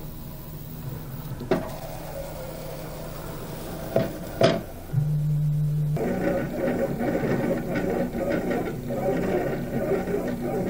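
Original Prusa i3 MK3 stepper motors running as the printer homes its axes and starts the XYZ calibration, moving the extruder to probe the bed calibration points. The first half is a low steady hum with a few sharp knocks. About five seconds in, a louder steady tone starts, then a busier whine that changes pitch as the axes move.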